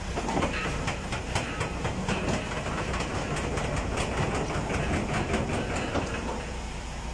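Box truck moving slowly at close range: a steady rumble scattered with many small clicks and rattles.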